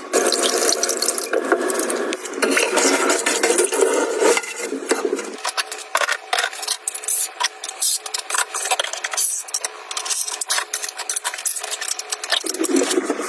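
Scrubbing pad rubbing and scraping over the bottom of a stainless steel sink. From about five seconds in, it gives way to a run of light clicks and knocks as small items are handled and set down on a kitchen counter.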